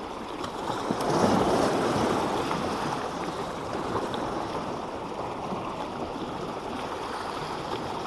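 Sea waves washing and sloshing against boulders at the waterline. The wash swells about a second in, then settles to a steady surge.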